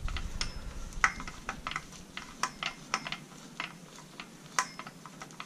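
Light, irregular clicks, about two or three a second, as the clutch flower nut of an 80cc two-stroke bicycle engine kit is turned off its thread by hand while the clutch is held in.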